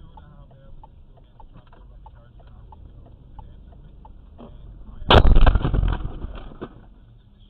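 Car collision heard from inside the cabin: a sudden loud crash about five seconds in, rattling and crunching for about a second and a half before fading. Before it, a steady low rumble of the car in motion with regular soft ticks about two to three a second.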